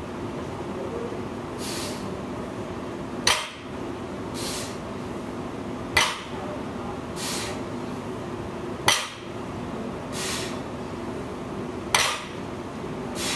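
Heavily loaded barbell set back down on a rubber gym floor between deadlift reps: four clanks of the plates, about three seconds apart, each coming about a second after a short breathy hiss from the lifter.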